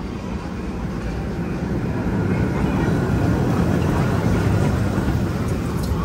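Steel roller coaster train running along its track overhead, a rushing noise that swells to a peak about three to four seconds in and then eases off as it passes.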